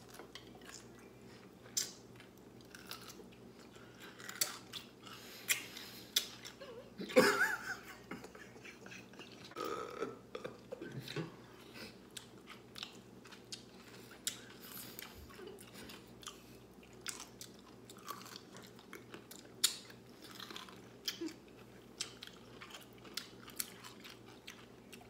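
Whole dill pickles being bitten and chewed close to the microphone: irregular crisp crunches and wet chewing. The loudest crunching comes about seven seconds in, with another cluster around ten seconds.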